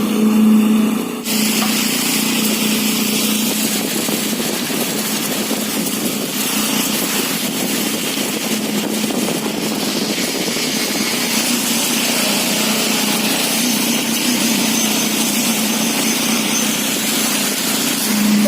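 A vehicle engine running steadily, its hum under a loud, even hiss of heavy rain and wind.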